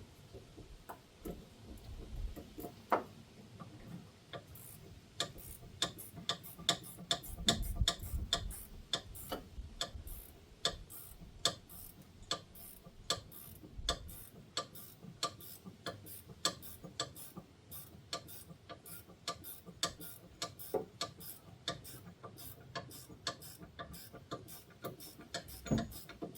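Hand ratchet clicking steadily, about two or three clicks a second, as a seized, rusted nut is worked loose, with a few low knocks from the tools and the car.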